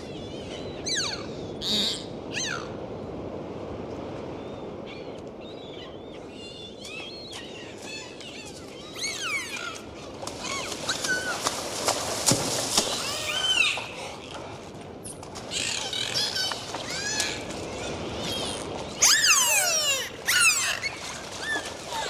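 Dolphins calling underwater: many overlapping whistles gliding up and down, mixed with rapid click trains and buzzy pulsed bursts, over a steady underwater hiss. The calls grow busier about ten seconds in and are loudest near the end.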